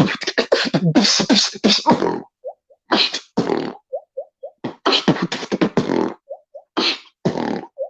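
A person beatboxing: rapid, sharp, noisy snare- and hi-hat-like mouth hits, broken up by short pitched pops and a couple of brief pauses.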